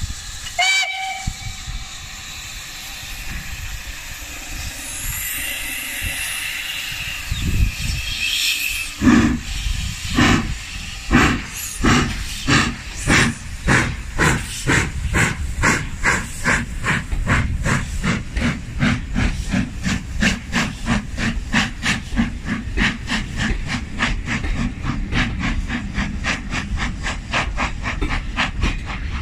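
Steam locomotive 53808, a Somerset & Dorset Joint Railway 7F 2-8-0, starting a train: steam hisses with a short whistle, then about nine seconds in the exhaust chuffs begin about a second apart. The chuffs quicken steadily to about three a second as the engine gathers speed.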